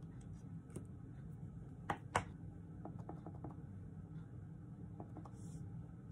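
Light clicks and taps of hand stamping with an ink pad and a clear stamp on an acrylic block: two sharper clicks about two seconds in, then a few fainter ticks, over a low steady hum.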